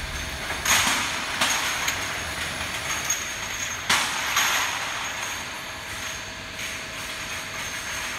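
Vertical rotary glass-bottle washing machine running: a steady mechanical hum with a faint high whine, broken by a few sharp clanks, two of them followed by a short rush of hissing noise.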